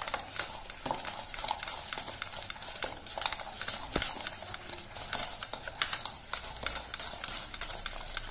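Hand wire whisk beating a thick ghee and sugar mixture with gram flour and semolina in a stainless steel bowl, its wires clicking and scraping against the steel in a rapid, uneven rhythm. One sharper knock about four seconds in.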